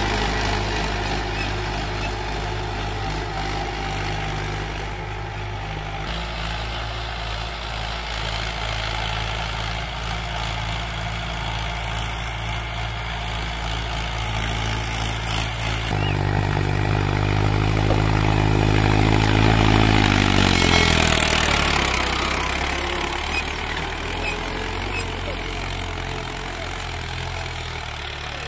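Mahindra Arjun Ultra-1 555 DI tractor's four-cylinder diesel engine running steadily under load while pulling a cultivator through ploughed soil. About two-thirds of the way through it grows louder and its pitch falls over a few seconds, then settles lower.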